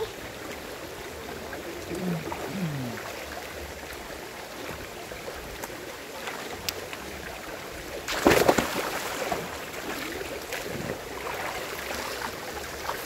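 Shallow rocky river running with a steady rush of water, broken by one loud splash about eight seconds in.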